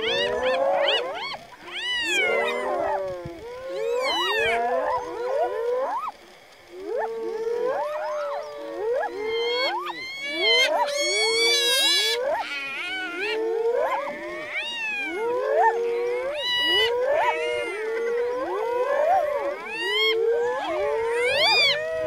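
Spotted hyenas calling all together as they mob lions on a kill. Many overlapping whoops and whines swoop up and down in pitch, with a run of rapid, quavering giggling around the middle.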